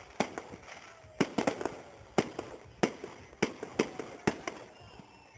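Aerial fireworks bursting overhead: an irregular run of about a dozen sharp bangs, some close together in quick clusters, each followed by a short echoing tail.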